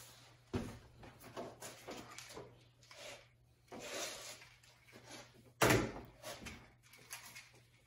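Scattered knocks and clunks of a long LED work light being handled and set in place under an open pickup hood, with one loud thump about five and a half seconds in.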